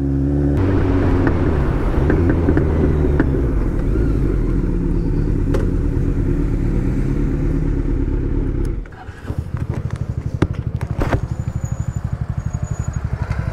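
Motorcycle engine running under way, its pitch rising and falling as the rider works the throttle. About nine seconds in it drops away and settles into a steady, rapidly pulsing idle as the bike comes to a stop.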